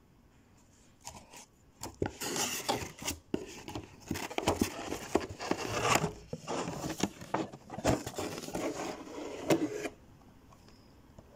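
Cardboard shipping box and the figure's plastic-windowed package being handled: a dense run of rubbing, scraping and tapping noises that starts about two seconds in and stops about a second before the end.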